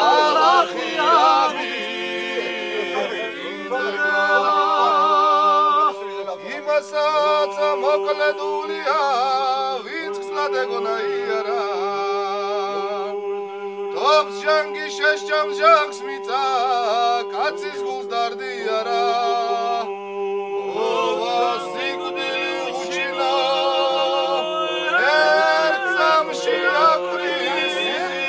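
Men singing a Georgian folk song in several parts: a low note held steady beneath higher voices that waver and ornament the melody.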